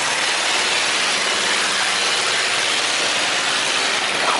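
Boat engine running steadily, mixed with a constant rushing hiss.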